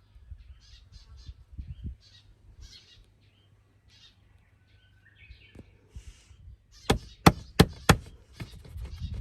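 Birds chirping over a low rumble, with four sharp knocks in quick succession about seven seconds in, the loudest sound here.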